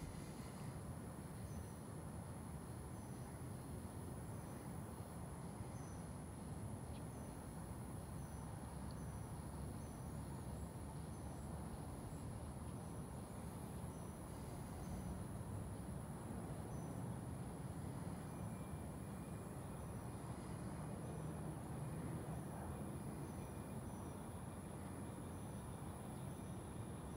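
Crickets chirping in the night: faint short chirps about once a second over a steady high trill, with a low, even background rumble.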